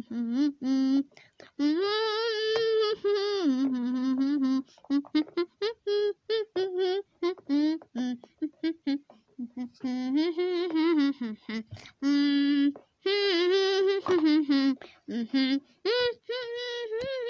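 A high voice humming a wordless tune, its notes wavering and jumping between a lower and a higher pitch, broken up into many short notes.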